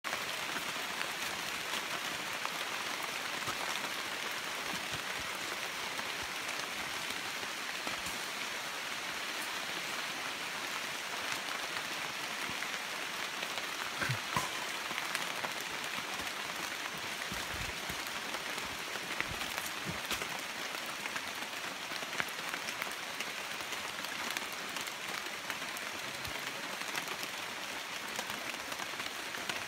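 Rain falling on rainforest foliage and leaf litter: a steady hiss scattered with small drip ticks, with a few low thumps about halfway through.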